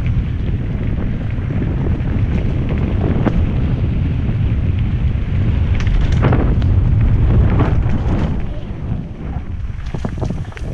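Wind rushing over the microphone of a mountain bike rider going down a dirt trail, with rattles and knocks from the bike over rough ground, thickest about six to eight seconds in and again near the end. The wind noise eases a little around nine seconds in.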